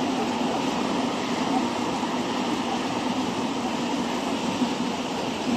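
Freight train of tank wagons rolling steadily past over a girder bridge: a continuous rumble of wheels on rail.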